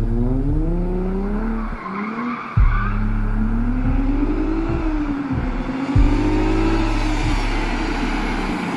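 Mercedes-Benz W203 C-Class accelerating hard toward the listener, its exhaust note rising in pitch through the revs, dropping at a gear change about two seconds in and then climbing again more slowly. A couple of sudden loud low thumps cut in about 2.6 and 6 seconds in.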